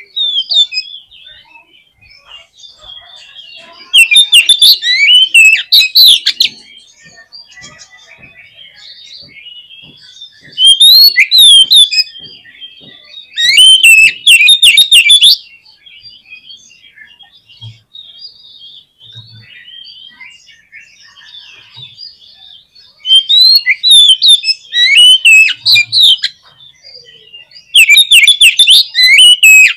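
Oriental magpie-robin (kacer) singing in loud bursts of rapid, varied, sweeping high notes, each lasting a few seconds. Softer twittering fills the pauses between the bursts. This is a lure song meant to provoke a caged male into singing.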